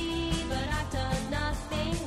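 Background music: a pop song with a sung melody over a steady beat.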